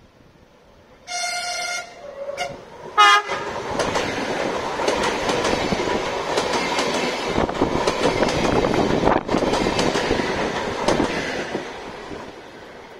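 Lastochka (Siemens Desiro RUS) electric train sounding its horn: a blast about a second in, then a shorter, louder one around three seconds. It then passes close by with a loud rush and rapid clicking of wheels over the rail joints, dying away near the end.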